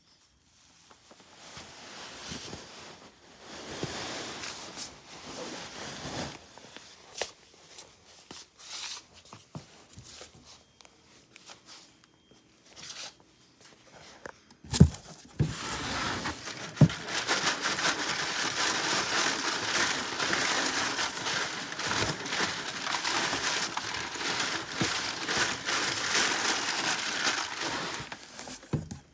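Cardboard scraping and crinkling: a rough stretch at first, scattered clicks, a few sharp knocks about halfway through, then continuous scratching through the second half.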